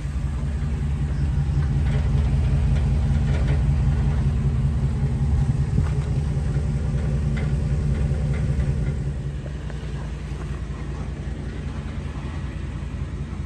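Ford E-350 box truck's engine idling steadily, a low even rumble that is loudest close to the tailpipe and drops somewhat about nine seconds in.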